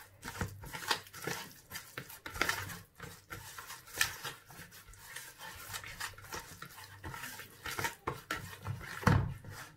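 Fingers working a thick, wet paste of ground spices, lemon juice and olive oil around a bowl: irregular squishing and scraping strokes against the bowl, with a louder flurry near the end.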